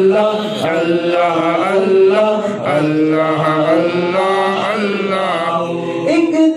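A man's solo voice chanting a naat, a devotional Urdu song in praise of the Prophet, into a handheld microphone, with long held notes that waver and glide in pitch.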